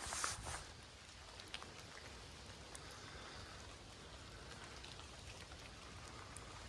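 Faint steady rain in woodland, with scattered drops ticking, and a brief louder rustle right at the start.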